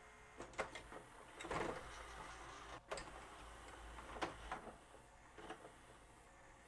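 Sony CDP-CE335 five-disc carousel CD player's turntable and loading mechanism moving on their own: faint motor whirring with scattered clicks as it hunts for position. The owner suspects oxidized drawer in/out position switches that misreport the drawer status to the microprocessor.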